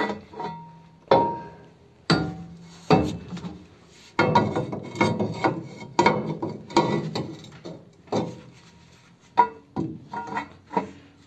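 Irregular metal clanks and clinks, about a dozen sharp strikes, some with a short ring, as steel parts and bolts of an engine mounting are worked by hand.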